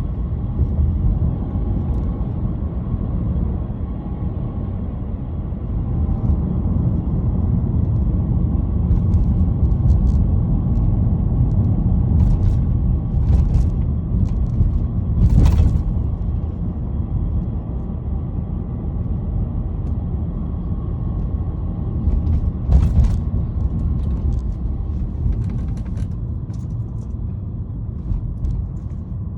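BMW E90 318i with a manual gearbox under way, its engine and road noise a steady low rumble. A scatter of short sharp metallic clicks and rattles comes through it, the clearest about halfway and about two thirds in. This is the rattle heard when accelerating in gear at low revs, which the owner fears is a gearbox fault.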